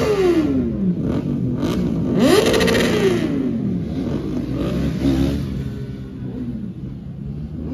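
Motorcycle engines revving among a crowd of bikes: one rev peaks right at the start and falls away over the next second, another rises and falls about two to three seconds in, then a few shorter blips.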